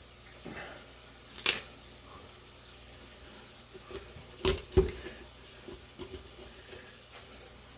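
Poultry shears snipping and cracking through turkey bone: a sharp snip about a second and a half in, then two louder cracks close together around the middle, followed by a few lighter clicks.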